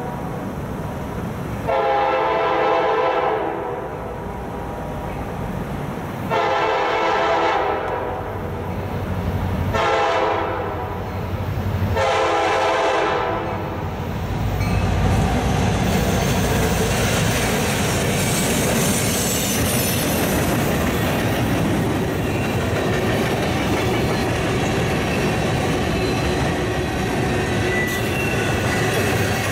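CSX freight train led by an EMD SD70MAC locomotive sounding four blasts on its air horn as it approaches. The locomotives then pass close by with a burst of low diesel rumble, and the train's cars roll steadily past.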